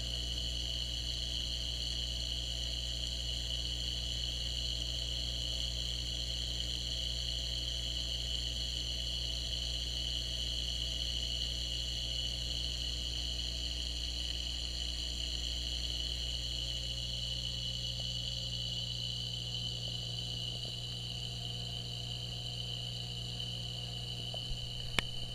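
Steady mechanical hum of a saltwater aquarium's pumps and powerheads: a low drone with a steady high whine over it, with a couple of sharp clicks near the end.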